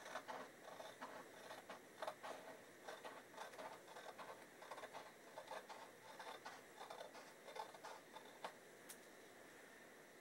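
Scissors cutting along the edge of a paper DVD case insert: a run of faint snips and paper rustles that dies away near the end.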